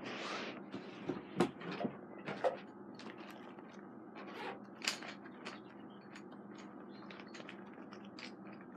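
Rummaging for a pair of scissors: a short rustle at the start, then scattered sharp clicks and knocks of small objects being handled, the loudest about a second and a half in and about five seconds in.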